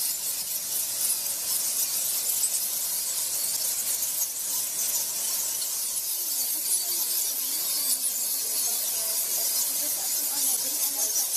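Dense, continuous high-pitched chatter of a huge roosting colony of Geoffroy's rousette fruit bats, thousands of squeaks merging into one hiss-like din.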